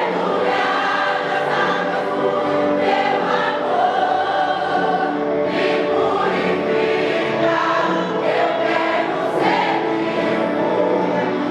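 A vocal group singing a Brazilian gospel medley together, a choir-like blend of voices holding long notes with no break.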